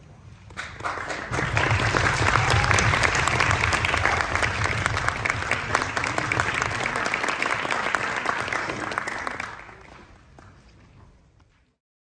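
Audience applauding in a concert hall. The clapping swells over the first second or two, holds steady, and dies away near the end.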